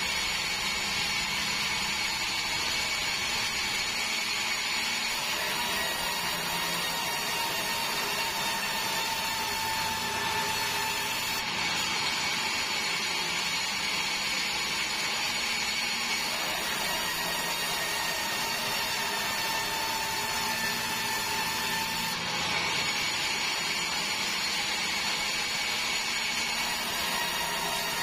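Sawmill band saw headrig running steadily while sawing meranti timber into boards, a continuous machine noise with a high whine over it.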